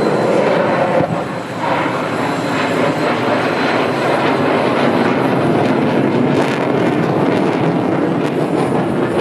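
Jet engine of an F-16 fighter, a loud, steady rushing noise that dips briefly about a second and a half in.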